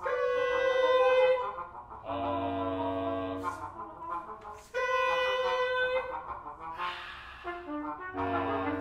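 Contemporary chamber music for baritone voice, trumpet, trombone and bass clarinet: held notes and chords in phrases about a second long, separated by short pauses. Some of the chords carry an airy, breathy hiss.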